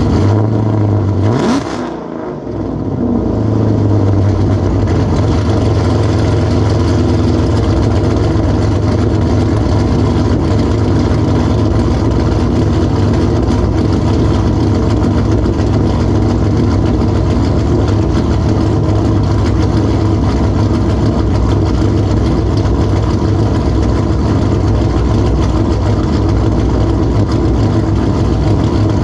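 Cammed 6.4-litre 392 HEMI V8 of a Chrysler 300 SRT8 idling loudly. About a second and a half in it gets one quick blip of the throttle and falls back, then settles into a steady idle for the rest of the time.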